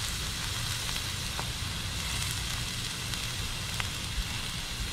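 A thick steak searing on a hot Blackstone griddle: a steady sizzle with an occasional faint pop.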